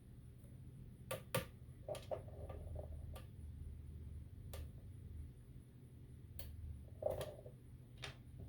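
Scattered small sharp clicks and taps, about nine at uneven intervals, from button-cell batteries and small plastic parts being handled while the batteries are checked. A low steady hum sits underneath.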